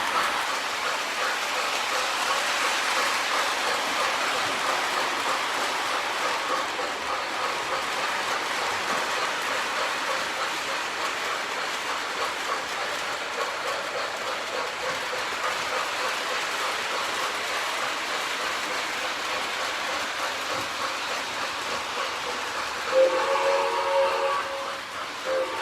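Model steam train set running steadily, a constant rushing chuff-and-track noise, with its multi-tone steam whistle blowing near the end.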